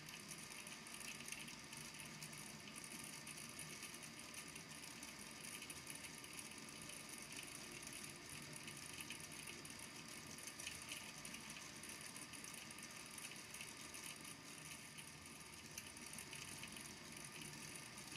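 Small balls in a water-filled volcano lamp tapping and clicking continuously against the base of the tank as they are pushed up and sink back, faint, with a steady low hum underneath.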